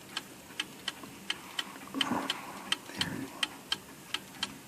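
1881 Ansonia marble mantel clock with an open escapement ticking steadily, about three ticks a second in tick-tock pairs. Brief soft handling sounds about two and three seconds in.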